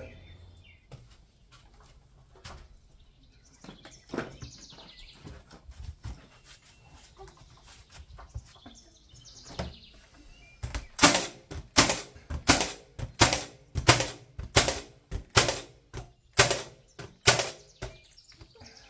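Cordless nailer driving nails into rough-sawn wooden siding boards: a rapid string of sharp shots, about two a second, starting about eleven seconds in and running for some six seconds.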